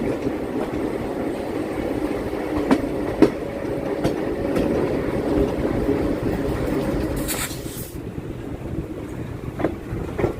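Electric suburban train running on the Chennai MRTS line: a steady rumble with a few sharp clicks from the wheels and track, and a brief hiss about seven seconds in.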